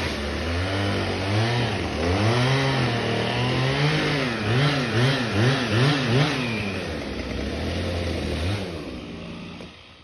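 Two-stroke chainsaw revving through a cut, its pitch rising and falling again and again, with a quick run of about five revs in the middle. It then drops back to a steady idle and fades out near the end.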